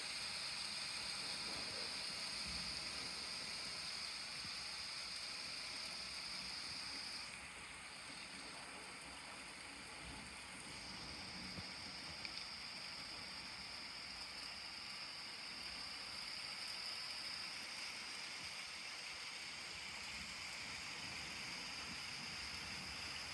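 Steady rain falling in a thunderstorm, an even hiss that eases a little for a few seconds about seven seconds in. No thunderclap stands out.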